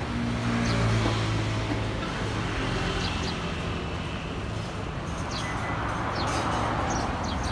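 Road traffic: a vehicle engine running with a steady low hum, strongest in the first second, and the sound of passing traffic swelling again near the end, with a few short high chirps.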